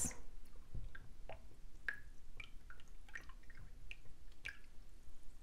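Silicone spatula stirring water and vegetable glycerin in a glass measuring cup: faint, irregular small drips, sloshes and light ticks.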